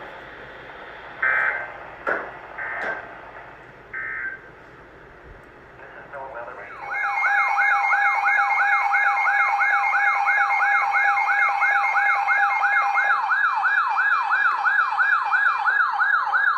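Weather radio's electronic siren alarm: a loud yelp sweeping quickly up and down, about three times a second, starting about seven seconds in. A few short electronic beeps come before it.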